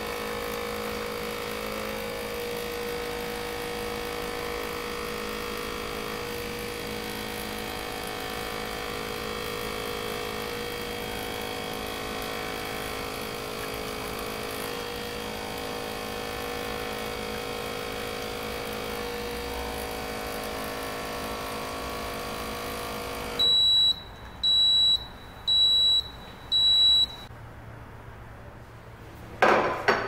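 IMONS Mini capsule coffee maker's pump humming steadily as it dispenses into a glass cup, stopping about three-quarters of the way through. Four short high beeps follow about a second apart, marking the end of the brew cycle, then a single glass clink near the end.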